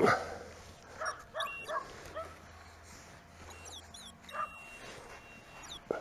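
A dog yipping and barking, several short yelps that rise and fall in pitch in the first couple of seconds and a few higher yelps around the middle.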